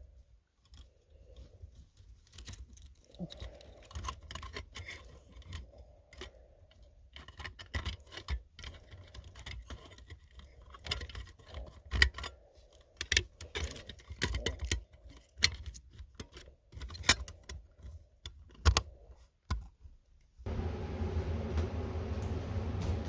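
Scattered clicks, taps and light metallic rattles of small parts and tools being handled. Near the end these give way to a steady hum with hiss.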